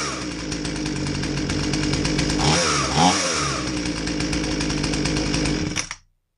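Husqvarna 240 two-stroke chainsaw engine running with its air filter off, blipped up in revs twice in quick succession about two and a half seconds in, then shut off near the end, cutting out suddenly. It is running on the old spark plug after a hard start.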